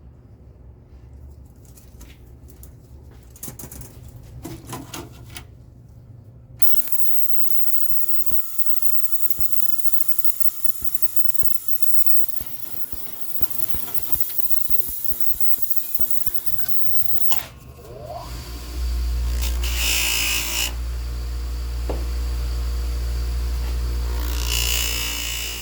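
Workshop work on a bicycle: light clicking for the first few seconds, then a small motorised tool starts suddenly and runs steadily. About nineteen seconds in it turns louder and deeper until the end.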